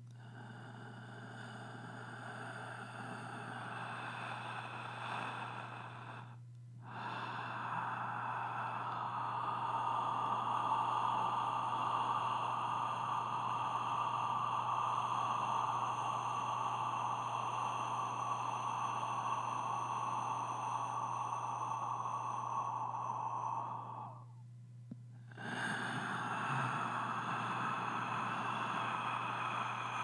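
A person's slow, deep, audible breathing: long drawn-out breaths that break off briefly twice, as the introductory breathing before a channelled spoken message. A steady low hum sits underneath.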